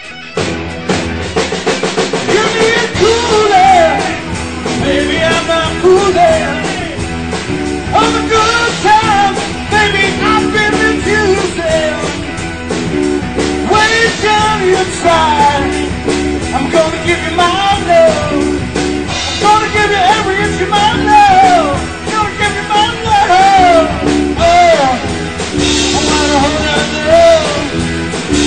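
Live rock band playing: drum kit, electric guitars and bass guitar with a lead vocal. The full band comes in about half a second in, and the singing starts a few seconds later.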